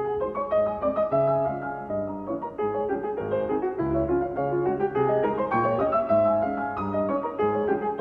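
Background piano music, a melody over repeated bass notes.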